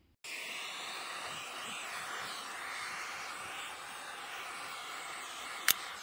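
Butane torch flame hissing steadily while shrinking heat-shrink tubing onto a crimped copper battery-cable lug, with one sharp click near the end.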